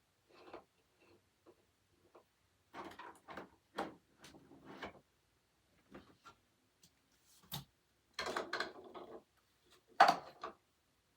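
Handling noises: irregular rustles and knocks of objects being moved about, with a sharp click about seven and a half seconds in and a louder knock about ten seconds in.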